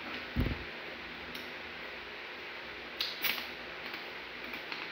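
Plastic soda bottle being picked up and handled: a low knock about half a second in, then a brief crackling hiss about three seconds in.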